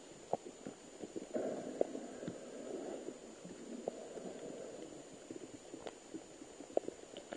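Muffled underwater sound from a submerged camera: a low, rumbling haze with scattered faint clicks, swelling for a couple of seconds a little after the start.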